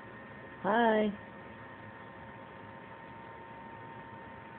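Steady electrical hum with a faint hiss underneath, with no change in level, broken only by one softly spoken 'Hi' about a second in.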